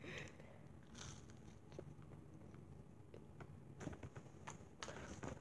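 Faint chewing and mouth noises from eating a sauce-dipped chicken nugget, with scattered soft clicks.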